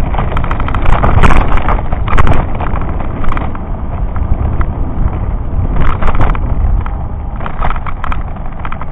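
Loud low rumble of wind and road vibration on the microphone of a camera riding on a bicycle, with short bursts of rattling about 1, 2, 3 and 6 seconds in as the bike goes over rough, cracked tarmac.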